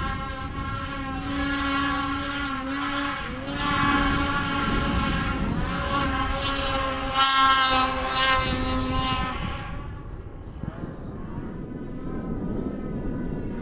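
Snowmobile engine running at a steady pitch as the machine passes close by, loudest about seven seconds in, then fading away after about nine seconds.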